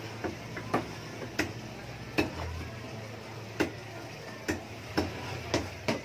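Knife chopping fish on a cutting board: sharp knocks at irregular intervals, about eight over six seconds.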